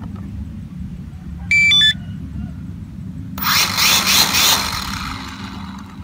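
A Devo 7E transmitter gives a short stepped beep about a second and a half in. About two seconds later the Syma X5C quadcopter's small motors spin its propellers with a fluttering whir as it binds, fading out after a second or so.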